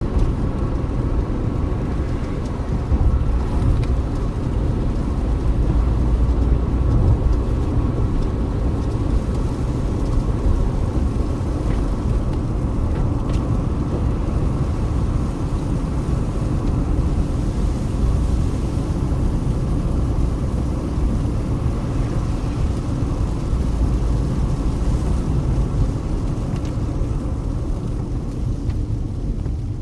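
Car driving along a road: a steady low rumble of tyres and engine throughout.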